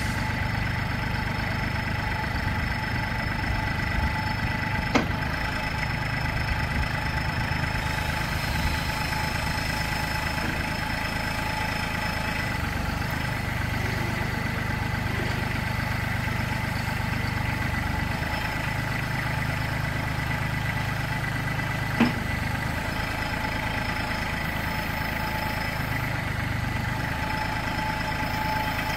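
Compact tractor engine idling steadily while the front loader's hydraulics move the bucket, the engine's low note stepping up and down a few times as the hydraulics load it. Two sharp clicks, one about five seconds in and another about twenty-two seconds in.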